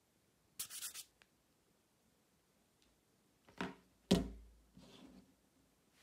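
Hands handling a smartphone: a brief scratchy rub of fingers on the phone about half a second in, then a knock and a louder thump a few seconds later as the phone is set down on a wooden desk, followed by faint rustling.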